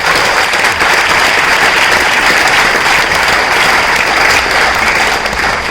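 Large audience applauding: dense, sustained clapping.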